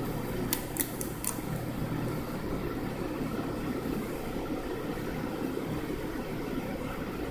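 A few short crinkles of a clear plastic sticker sleeve being turned over in the hands, about half a second to a second in, over a steady background hum.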